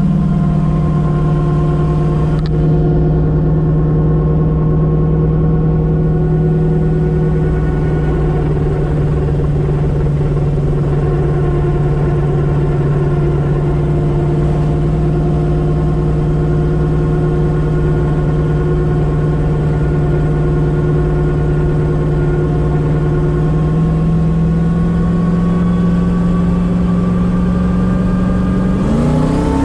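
Turbocharged car engine heard from inside the cabin, cruising at steady low revs on part throttle and still under vacuum, off boost. The engine note edges up a little late on, then starts to climb sharply at the very end as the throttle is opened.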